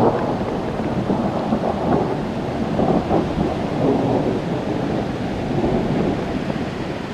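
Heavy rain falling during a thunderstorm, with thunder rumbling through it in low swells.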